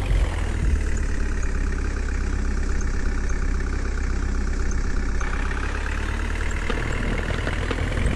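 A heavy vehicle's engine running steadily at idle, with a slight change in its tone about five seconds in.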